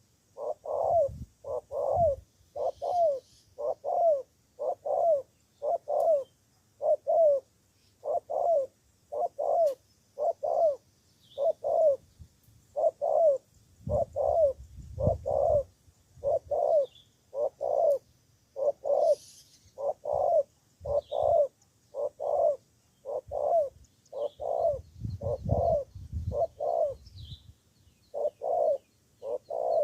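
Spotted dove cooing over and over, a steady run of short low coo notes in pairs, about one a second. A low rumble comes under it twice, in the middle and later on.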